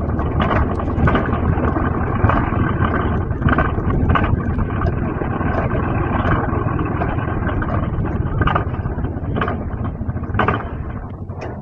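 Alpine coaster sled running at speed along its tubular steel rails: a steady rumble of the wheels with a low hum and scattered sharp clacks over the track. The noise eases a little near the end as the sled slows toward the station.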